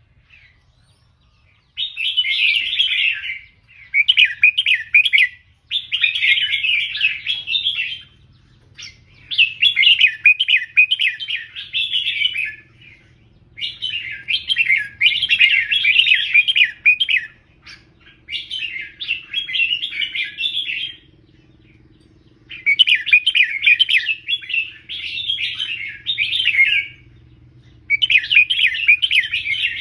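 Red-whiskered bulbul singing: about nine short song phrases in quick succession, each a second or two long, with brief pauses between.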